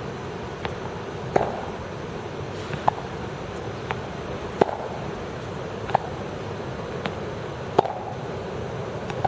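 Tennis balls being hit with rackets and bouncing on the court during a fed rally drill: about ten sharp pops, roughly one a second, some louder than others, over a steady background rush.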